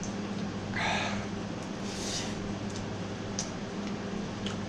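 A man eating very spicy ramen breathing hard and sniffing: two short breathy hisses about one and two seconds in, then a few small clicks, over a steady low hum.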